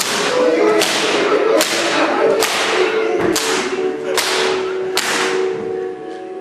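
Whip cracking sharply about seven times at an even beat, roughly one crack every 0.8 seconds, over a sustained low chord of held tones.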